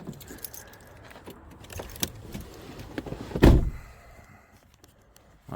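Light clattering and rattling of gear being packed into the back of a hatchback car, with one loud heavy thump about three and a half seconds in.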